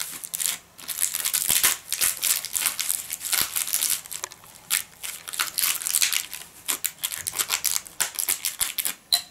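A kitchen knife slitting the cellophane wrap around a plastic tray: a long, irregular run of sharp crinkling crackles as the film is cut and torn open.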